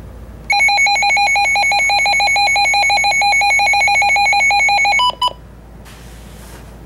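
Weather alert radio sounding its alarm during a test: a loud, rapidly pulsing electronic tone for about four and a half seconds, then a brief higher beep as it cuts off.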